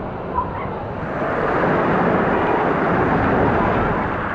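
Water rushing and splashing around an inner tube sliding down a fibreglass waterslide, louder from about a second in as the tube pushes through the water near the bottom.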